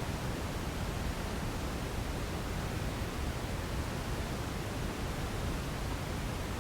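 Generated sleep noise: a steady, unvarying hiss with no tones or clicks, heavier in the low end than in the highs.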